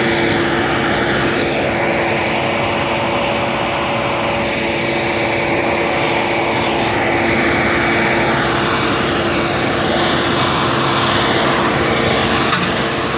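Vacuum truck's blower and engine running steadily at working speed while sucking out a storm drain: a loud, constant rushing noise with a steady hum.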